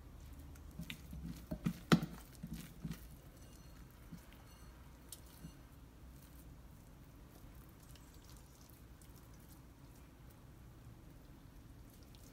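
Oiled hands squeezing and pinching off soft, sticky yeast dough, with faint wet squelches and small clicks clustered in the first three seconds, the loudest a sharp tap about two seconds in.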